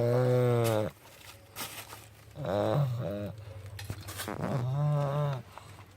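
Sleeping puppy snoring loudly with a pitched, steady tone: three snores about two seconds apart, the middle one broken in two.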